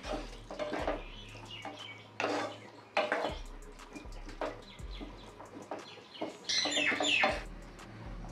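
Spatula stirring and scraping chopped chicken frying in oil in a nonstick pan, with repeated scrapes and taps against the pan. About six and a half seconds in, a chicken calls once, the loudest sound.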